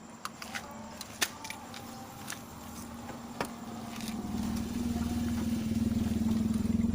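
Light metallic clicks and clinks of small parts being handled, then a vehicle engine running and growing steadily louder from about four seconds in.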